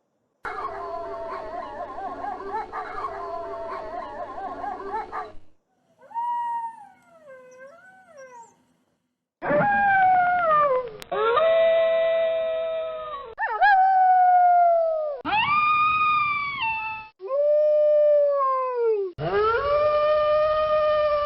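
Wolves howling: first a chorus of several overlapping howls for about five seconds, then a quieter wavering howl, then from about nine seconds in a run of single long howls, each sliding down in pitch and cutting off abruptly, with short silences between them.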